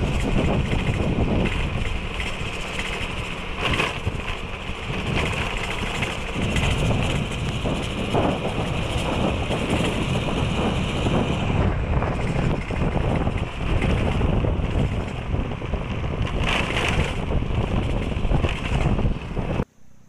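Wind buffeting the microphone of a camera on the move, over the steady running sound of a vehicle; it cuts off abruptly near the end.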